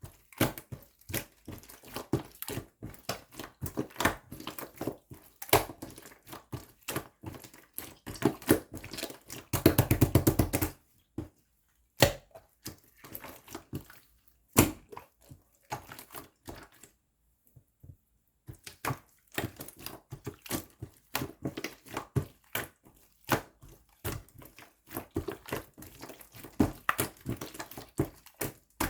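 Slime being squeezed and poked by hand, giving irregular small clicks, pops and crackles. About a third of the way in comes a dense, louder run of crackling for about a second, followed by a couple of sharp single pops and a brief lull.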